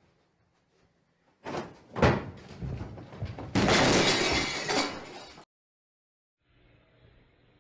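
Two sharp thumps about half a second apart, like a car door being shut, then handling noise and about two seconds of loud rushing noise that stops suddenly.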